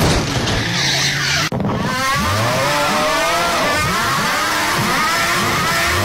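A shrill meme sound of shrieking "AGH" cries, many of them overlapping, each rising and falling in pitch and repeating about twice a second, starting after a brief cut about a second and a half in.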